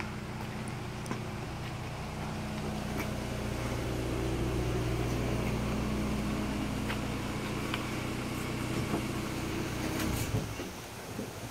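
A vehicle engine running steadily at low revs. It grows louder a few seconds in and stops about ten and a half seconds in.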